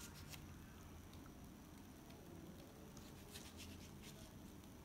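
Near silence with a few faint, short scrapes of a small knife cutting into a tomato held in the hand.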